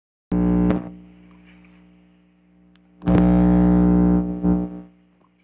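Music: a distorted electric guitar chord struck and left to fade, then a second chord struck about three seconds in and held, with a last stab before it dies away near the end.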